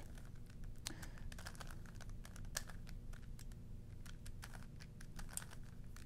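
Irregular clicking and clacking of a 3x3 Rubik's Cube's plastic layers being turned quickly by hand through a corner-twisting move sequence.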